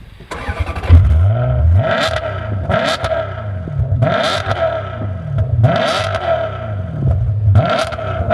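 Maserati 4200 GT's 4.2-litre V8 revving hard in repeated surges, about five rises and falls, each peaking with a sharp, crackly burst from the exhaust.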